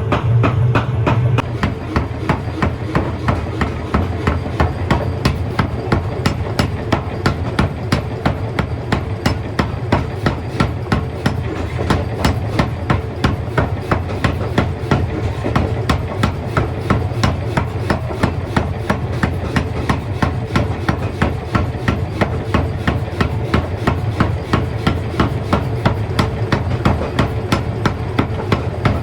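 Metal being hammered during forging: sharp, evenly repeated blows at about three a second, over a steady machine hum.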